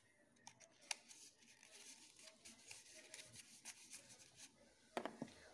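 Faint handling noises: scattered small clicks and rustles as a tube of paper glue and a piece of paper are handled, with a few sharper clicks near the end.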